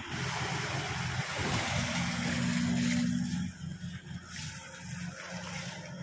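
Crawler excavator's diesel engine running under load, louder and slightly higher-pitched for the first three seconds or so, then dropping back to a quieter, steady run.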